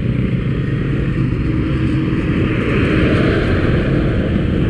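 Motorcycle engine running steadily while riding, with road and wind noise; the noise swells a little about three seconds in.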